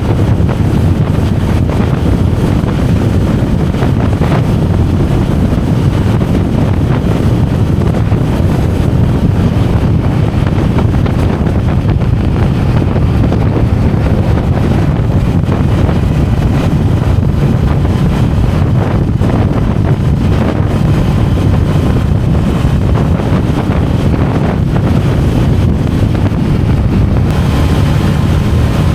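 Honda Rebel 500's parallel-twin engine running steadily under way, mixed with heavy wind rush over the microphone.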